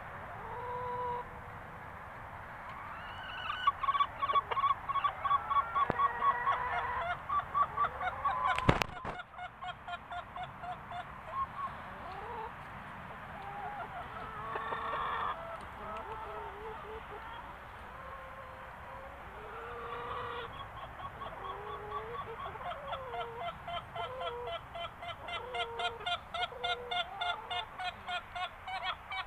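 Chickens clucking: runs of quick repeated clucks, several a second, with short drawn-out calls in between. A single sharp knock comes about nine seconds in.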